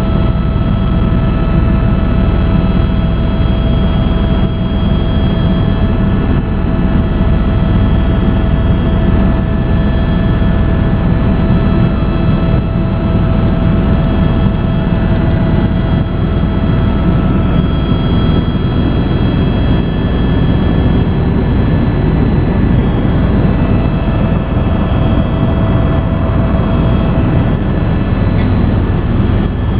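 Airbus EC130 helicopter in flight, heard inside the cabin: a steady, loud rotor and turboshaft engine rumble with a thin steady turbine whine above it.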